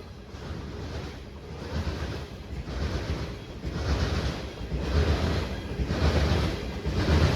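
A train rolling past: a low rumble under a noisy rush that swells about once a second, getting louder toward the end, with wind on the microphone.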